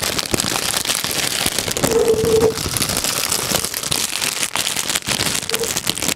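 Clear plastic bag crinkled and rustled by hand right up against a microphone: a dense, continuous crackling.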